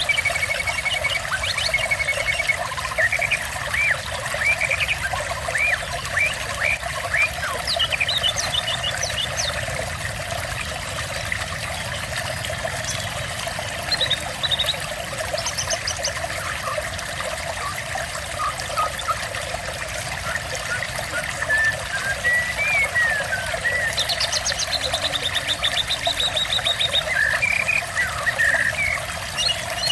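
Water trickling steadily, with small birds chirping over it and a rapid trill about two-thirds of the way through.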